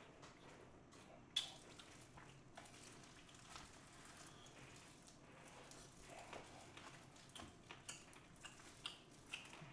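Faint eating sounds: quiet wet chewing with scattered small clicks, a sharper click about a second and a half in and several more near the end.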